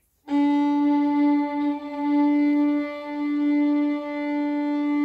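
A violin bowed on one long, steady note, opening the song, with small swells in loudness as it is held.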